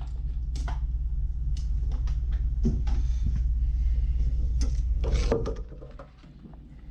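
Packaging of a screwdriver set being handled and opened: scattered clicks and rustles, with a louder clatter about five seconds in, over a steady low rumble that drops away soon after.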